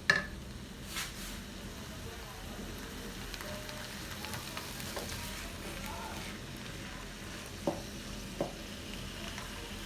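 Chopped vegetables frying in oil in a pan, a steady sizzle as they are stirred. A sharp knock of the stirring utensil on the pan comes at the start, another a second later, and two more close together near the end.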